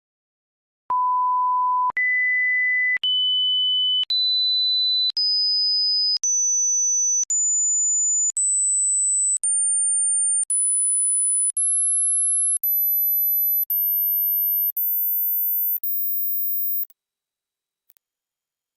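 Hearing-test pure sine tones: fifteen steady beeps of about a second each, back to back at the same loudness, each a step higher in pitch than the last, climbing from a mid-range beep to a very high, thin whine. A few faint ticks follow near the end.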